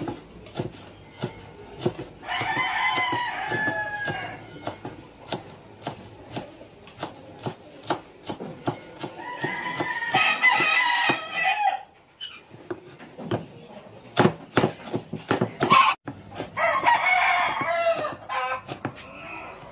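A kitchen knife chopping celery leaves on a wooden cutting board in quick, regular taps, while a rooster crows three times, each crow lasting about two seconds and louder than the chopping.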